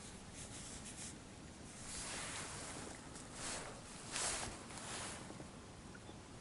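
Soft rustling and rubbing, a few brushing swishes about two to five seconds in, the loudest a little past four seconds.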